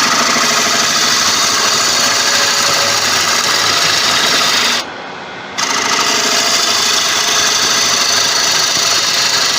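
Gouge cutting into a large tiger wood bowl blank spinning on a Laguna 1836 wood lathe while the outside curve is shaped: a loud, continuous shearing cut. It stops for under a second about five seconds in, then resumes and cuts off suddenly near the end.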